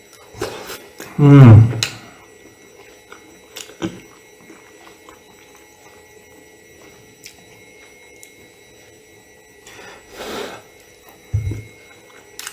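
A man eating pasta with a fork: a loud, short hummed 'mmm' about a second in as he takes a mouthful, then a few light clicks of the fork against the china plate, a breathy chewing noise around ten seconds in and a short low hum near the end.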